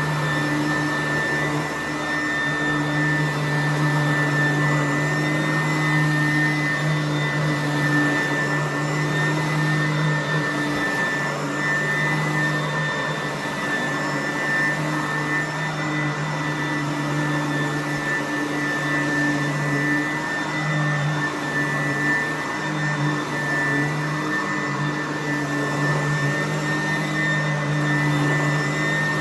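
Sanitaire upright vacuum cleaner running steadily on carpet: an even motor hum with a high whine above it.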